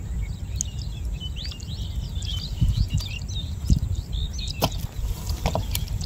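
Birds chirping and chattering in many short, high calls over a low steady rumble, with a few sharp clicks in the last couple of seconds.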